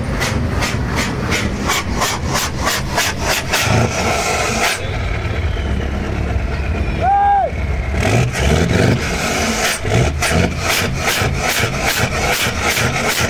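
V8 truck engine running, heard at its quad chrome exhaust tips, with a steady deep drone and a fast, regular pulsing of about four beats a second that drops out for a few seconds in the middle. A short horn-like toot sounds about seven seconds in.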